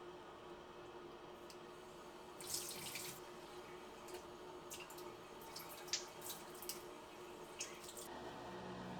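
Kitchen tap running briefly into the sink about two and a half seconds in, followed by scattered light clicks and clinks of kitchenware at the sink.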